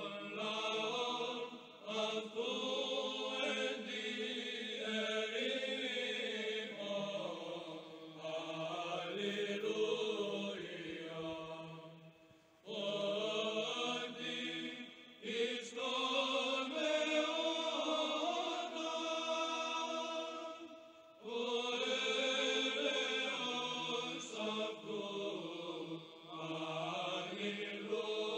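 Slow religious chant sung by voices in long held phrases, with brief pauses between phrases about 12 and 21 seconds in.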